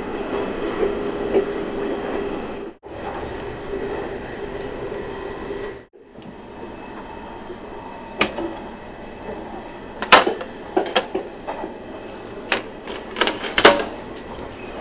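Steady running rumble of a KTX high-speed train heard inside the carriage, breaking off briefly twice. From about eight seconds in, a series of sharp clunks and knocks comes from an onboard vending machine as a plastic water bottle drops into its pick-up slot and is pulled out.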